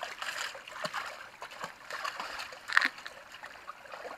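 A dog's paws splashing as it wades through a shallow, rocky stream over the sound of running water, with a sharper splash about three seconds in.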